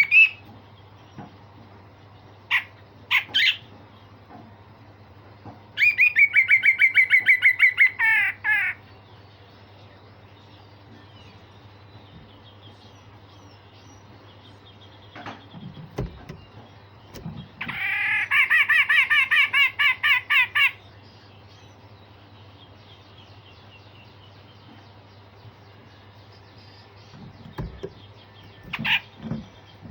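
Grey-cheeked bulbul (cucak jenggot) calling: a few sharp short notes, and twice a burst of fast repeated notes lasting about three seconds. A steady low hum runs underneath.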